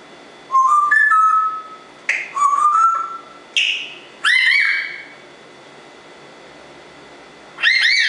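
Congo African grey parrot whistling: short phrases of stepped, rising notes, then a few sharp upswept whistles, a pause, and one more upswept call near the end.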